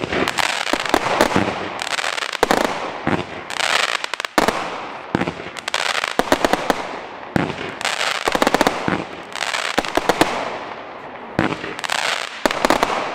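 Weco Midnight Madness 167-shot compound fireworks battery firing: volley after volley of sharp shots and bursts, coming about once a second, each followed by dense crackling.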